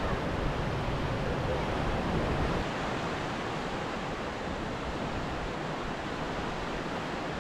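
Steady hiss and wash of ocean surf breaking on a rocky shore. A low rumble sits under it for the first two and a half seconds, then eases off.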